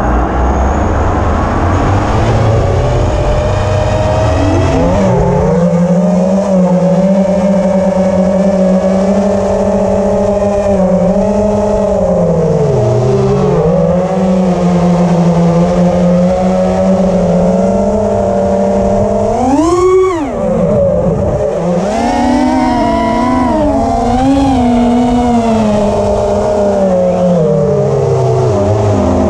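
FPV quadcopter's electric motors and propellers whining. The pitch rises as the motors spin up about five seconds in, then climbs and falls with the throttle, with one sharp upward sweep and drop about twenty seconds in.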